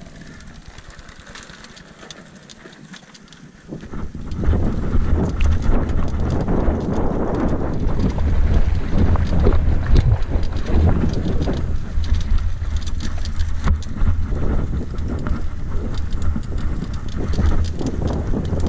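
Mountain bike rolling downhill over a rocky dirt trail, its frame and parts rattling and clattering over stones while wind buffets the camera microphone. Quieter at first, then loud from about four seconds in as the bike picks up speed.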